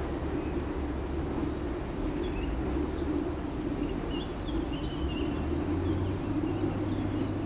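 Small birds chirping and singing in short high phrases over a steady low drone of distant machinery.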